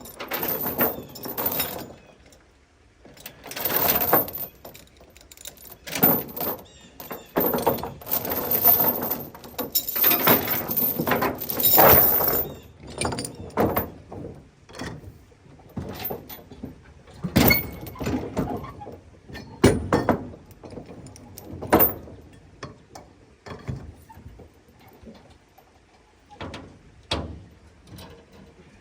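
Heavy steel tie-down chains clanking and rattling as they are pulled and hooked to secure a load, with a run of sharp metal knocks partway through.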